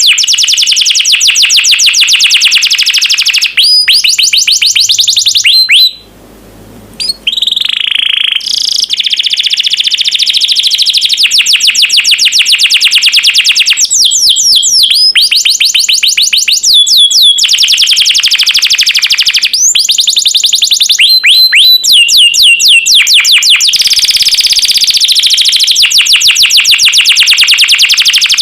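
Domestic canary singing loud, rapid trills of repeated high notes, broken by short pauses. About six seconds in it stops for a second, then comes back with a held whistle before the trills return.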